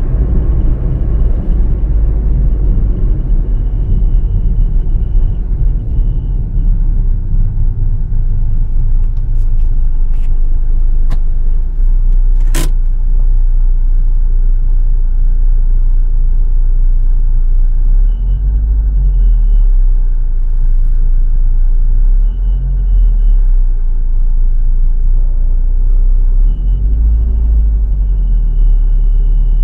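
Proton Gen-2 car running with a loud, steady low rumble, over which a faint high whistle comes and goes several times: the whistling fault whose source the owner has not found. One sharp click sounds about midway.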